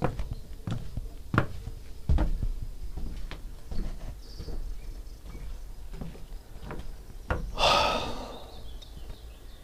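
Sharp knocks repeating roughly every 0.7 s over a low wind rumble on the microphone. A louder rustling burst comes near the end, and a faint high chirp about four seconds in.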